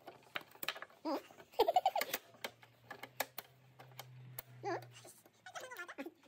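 Short, brief vocal sounds mixed with scattered sharp clicks and knocks. A low, steady hum sounds for a few seconds in the middle.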